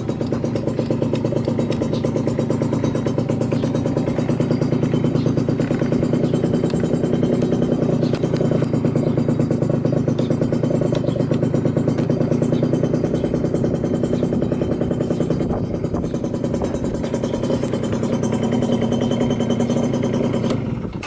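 Yamaha Champ RS 50cc two-stroke scooter engine with a long expansion chamber exhaust running steadily, with no abnormal noises. The engine stops suddenly just before the end.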